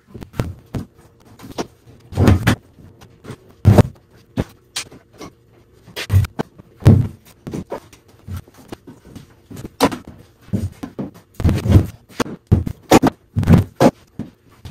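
Pieces of split firewood clunking and knocking against each other as they are picked up and set down, irregular knocks with some in quick pairs and a few scrapes.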